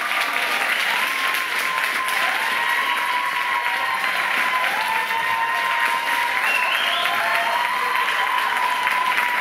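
Audience applauding steadily in a theatre hall, with a thin, sustained high tone running through it that dips in pitch and comes back several times.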